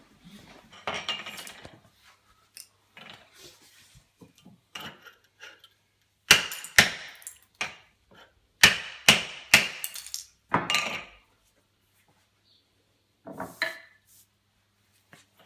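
Hammer and chisel striking slate tiles in a series of sharp knocks, loudest and about two a second in the middle. This is chipping raised tile edges (lippage) down to level.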